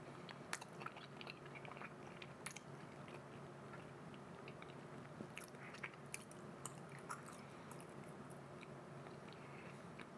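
Quiet close-up chewing of a soft mochi, with scattered small mouth clicks over a faint steady low hum.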